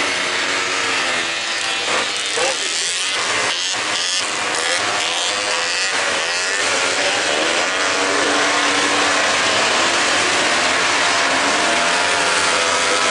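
Several small youth race snowmobiles running around a snocross track, their engines revving up and down over a constant hiss, growing a little louder about two-thirds of the way through.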